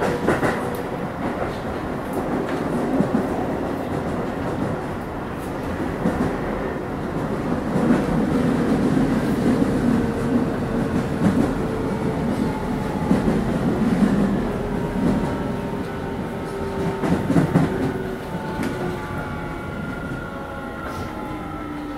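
Keio 9000 series electric train heard from inside: steady rumble of wheels on rails with some rail-joint clacking, under the motors' whining inverter tones. Over the last few seconds the tones fall in pitch as the train slows for the next station.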